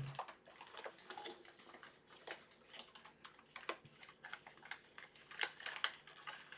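Keyboard-kit parts and their packaging being handled and packed back into a box: irregular light clicks, taps and rustles.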